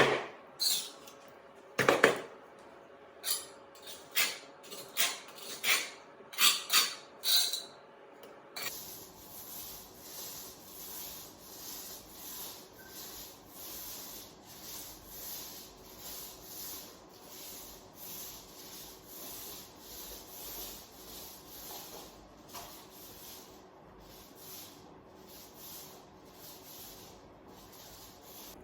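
Hand rubbing or scraping work: about eight seconds of separate short scrapes and knocks, then a steady run of back-and-forth abrasive strokes, roughly one and a half per second.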